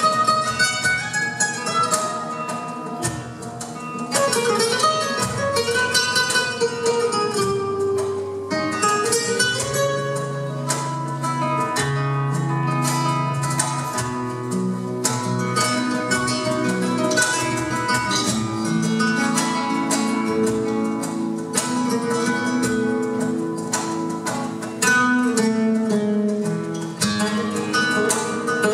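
Two nylon-string flamenco guitars playing a duet live: fast runs of plucked notes over lower held notes and chords.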